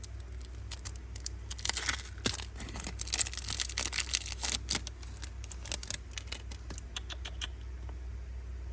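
Handling noise of a boxed Zippo lighter being unpacked: rapid clicks and crinkling rustle, busiest in the middle and stopping about a second before the end, over a low steady hum.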